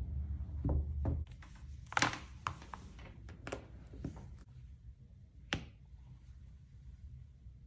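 Light taps and knocks of objects being handled and set down on a desk, about seven in an uneven scatter, the loudest about two seconds in and another sharp one about five and a half seconds in. A low hum cuts off about a second in.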